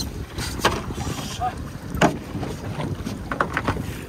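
Wind buffeting the microphone over the rush of sea water around a small fishing boat, with a few short sharp knocks and clicks spread through.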